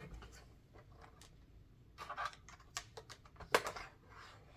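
Light clicks, taps and scrapes of a small hand tool working on a laptop's parts during disassembly. They are scattered, with a cluster about two seconds in and the loudest tap about three and a half seconds in.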